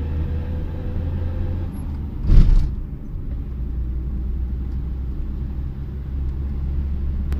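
Car running down the road, its engine and tyre rumble heard from inside the cabin, steady and low. A brief louder noise comes about two and a half seconds in.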